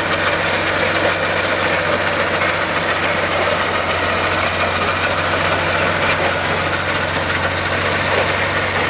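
Heavy vehicle engine running steadily at low revs, a constant low drone that does not rise or fall.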